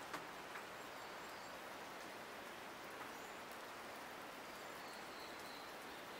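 Steady light rain falling in wet native bush, with a few sharper drips, the loudest just after the start, and faint high bird calls now and then.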